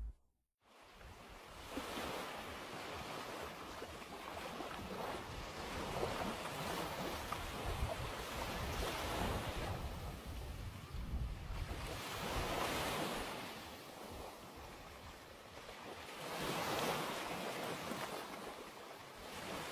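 Sea waves washing on the shore, swelling and easing off several times, with wind buffeting the microphone.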